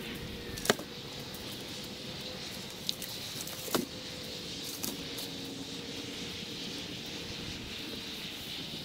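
Footsteps over dry brush and cut branches, with a few sharp snaps of dry twigs about a second in and again around three to five seconds in, over a steady faint outdoor background.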